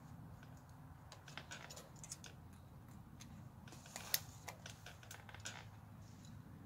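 Faint, irregular clicks and ticks of hand-sewing rabbit fur pelts, a needle and thread being worked through the hide, with the sharpest click about four seconds in.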